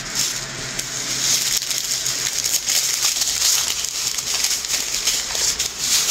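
Small plastic packets of diamond-painting drills being handled and taken out: a steady crinkling of thin plastic with a dense patter of fine clicks from the tiny drills.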